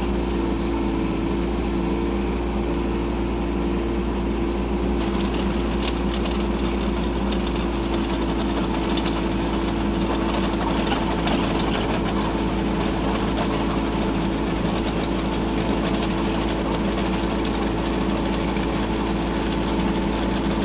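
Bobcat E10 mini excavator's diesel engine running steadily under load, driving a hydraulic EE-DC1 drum cutter that grinds into a sandstone boulder. A higher grinding hiss grows louder about five seconds in.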